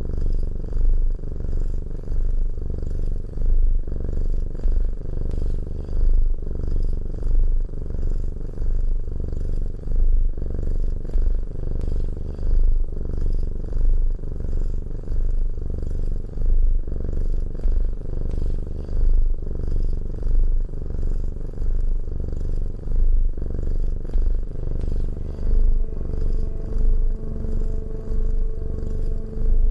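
Domestic cat purring close to the microphone: a steady low rumble that swells with each breath, about once every two seconds.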